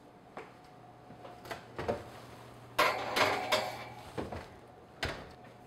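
Oven door opening and a metal tart pan set onto the wire oven rack. A few light clicks and knocks, then a cluster of metal rattles about three seconds in, and one sharp knock near the end.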